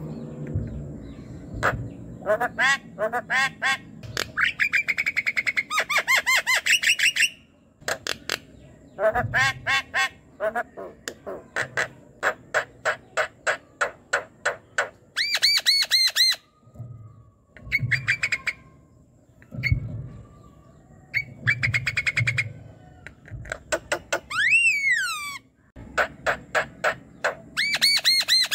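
Javan myna (jalak kebo) calling in a loud, busy bout: rapid runs of clipped, harsh, repeated notes broken by short pauses, with one slurred whistle near the end.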